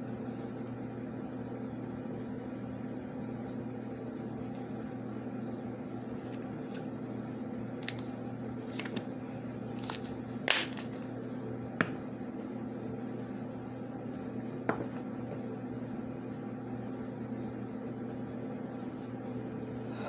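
A steady low hum throughout, with a handful of short sharp clicks or taps scattered around the middle, the loudest just over ten seconds in.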